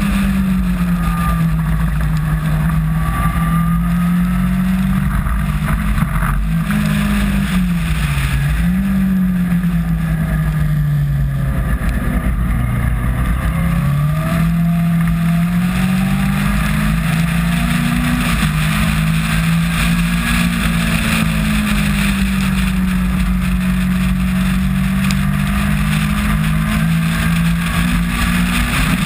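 Caterham R300 Superlight's four-cylinder engine at race pace, heard from the car, its note rising and falling with the throttle and gear changes, with two clear drops in revs and pick-ups about eight and fourteen seconds in. A steady rush of wind and wet-road spray runs under the engine.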